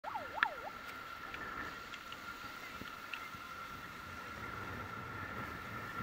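Outdoor ambience of a pebble beach: a steady faint hiss under a steady high-pitched tone. In the first second a short warbling sound glides up and down three times, and there is a sharp click.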